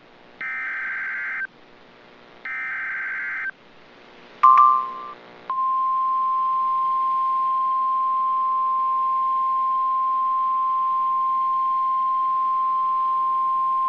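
Emergency alert SAME header: two harsh, buzzing digital data bursts of about a second each, a second apart. A short glitchy beep follows, and about five and a half seconds in the steady single-pitch NOAA Weather Radio 1050 Hz warning alarm tone starts and holds, the attention signal that heralds a tornado warning.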